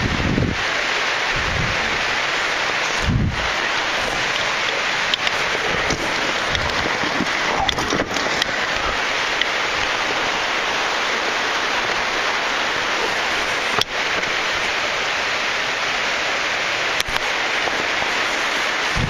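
Steady rush of falling water, a waterfall pouring down into the pothole, with a few low thumps in the first three seconds.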